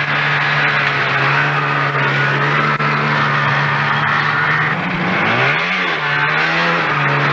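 Snowmobile engine running at a steady pitch, then revving up and back down a little over five seconds in as a sled with two riders pulls away, with a second, smaller rev near the end.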